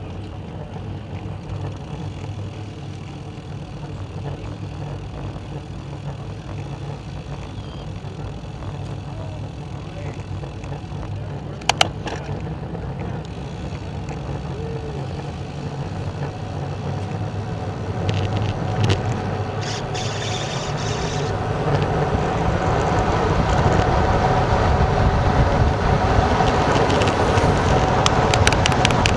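Wind rushing over a bike-mounted camera's microphone, with road bike tyres humming on asphalt, growing steadily louder as the bike gathers speed down a steep descent. A single sharp click about twelve seconds in.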